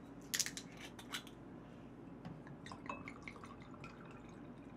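Soju poured from a glass bottle into a small glass: a few sharp glassy clinks about half a second and a second in, then faint trickling and dripping.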